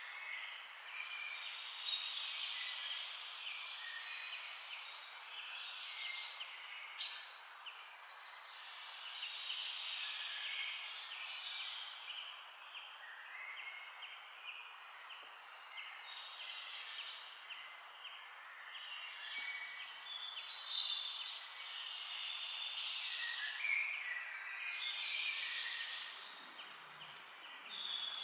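Birds chirping and singing over a steady background hiss, with a cluster of song notes returning every three to four seconds.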